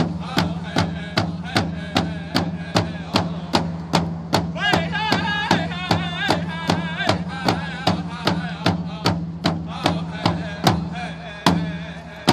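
Powwow honor song: hand-held frame drums beaten together in a steady beat, about two and a half strikes a second, under group singing that climbs to high, wavering voices about halfway through. Near the end the beat slows to a few widely spaced, louder strikes.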